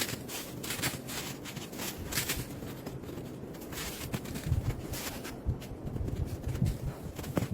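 Irregular crunching steps in snow, with a few soft low thumps in the second half.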